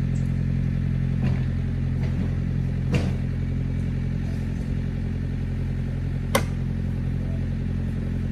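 A steady low machine hum, like an engine idling, with a few sharp clicks or knocks; the loudest knock comes about six seconds in.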